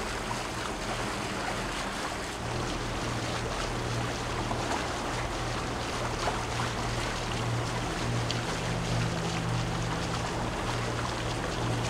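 A boat's engine droning steadily under way, with the rush of water and wind noise over it; the low hum grows a little stronger a couple of seconds in.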